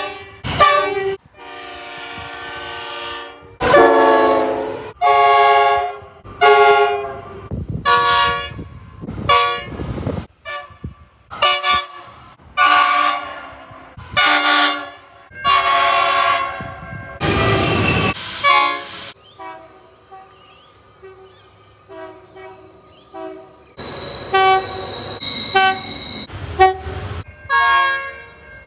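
Train horns sounding one blast after another, each a chord of several notes lasting up to about two seconds, the pitch changing from one horn to the next. Near the end, a higher-pitched horn gives a run of short toots.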